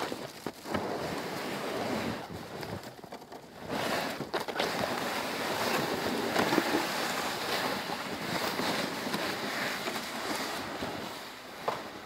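Wind rushing through a snowy pine forest in gusts. It dips briefly about three seconds in, rises again, and eases near the end.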